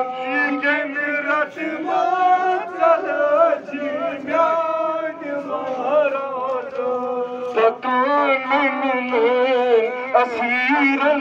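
A man chanting a noha, a Shia mourning lament, solo into a handheld microphone. The melody is ornamented and wavering, sung in long phrases with brief breaths between them.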